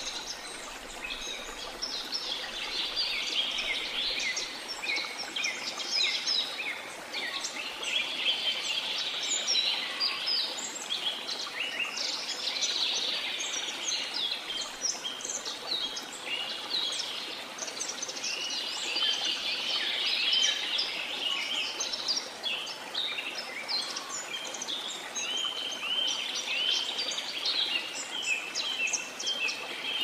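Many songbirds chirping and trilling at once, a dense chorus of short, quick notes over a steady background hiss.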